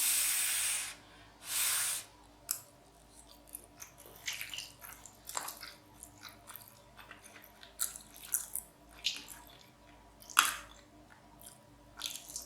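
Close-up chewing of soft, cheesy macaroni and cheese, with wet mouth clicks and smacks scattered through it. Two short hissing bursts come in the first two seconds.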